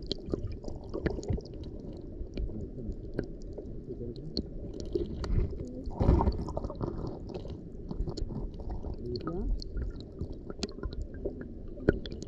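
Underwater sound of shallow sea water heard through a submerged camera: a muffled low rumble with scattered clicks and crackles, swelling briefly about six seconds in and with one sharper click near the end.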